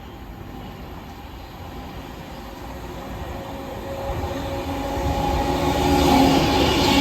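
A train approaching along the track, growing steadily louder from about three seconds in, with steady whining tones rising out of the rumble as it draws near.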